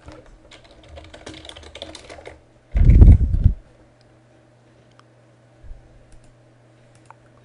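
Rapid light clicking for about two seconds, then a short, loud, low-pitched burst, over a faint steady low hum.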